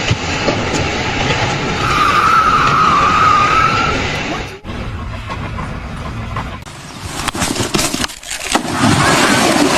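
Noisy vehicle or machinery sounds broken by abrupt cuts, with a steady high squeal lasting about two seconds near the start.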